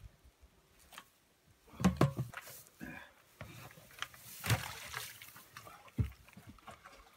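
Rustling and swishing of tall meadow grass against a person pushing through it, with a few dull thumps from footsteps and handled gear, the loudest about two seconds in, again midway, and near the end.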